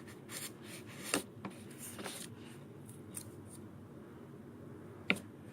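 Faint scraping and light clicks of a freshly sharpened wood chisel being tried out for sharpness, with one sharper click about five seconds in.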